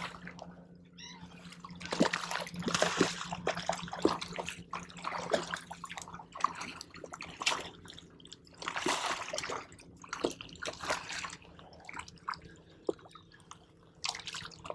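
Water splashing and sloshing in irregular bursts: a hooked speckled trout thrashing at the surface during the fight.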